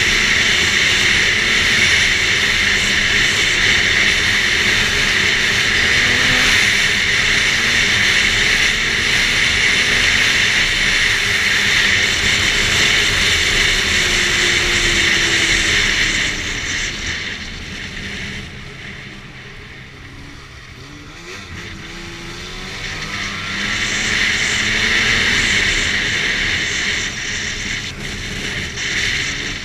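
2011 Arctic Cat F8 Sno Pro snowmobile's two-stroke twin running along the trail, with steady engine, track and wind noise. A little past halfway it eases off and gets quieter, then the engine picks up again a few seconds later.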